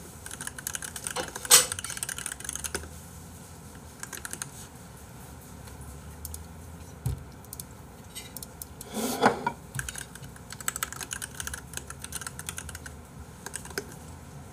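Computer keyboard typing in quick runs of key clicks, with a louder knock about a second and a half in and another around nine seconds.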